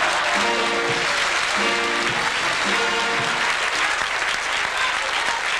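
Hall audience applauding, with music under it: held notes in three short phrases in the first three seconds or so, then the clapping goes on alone.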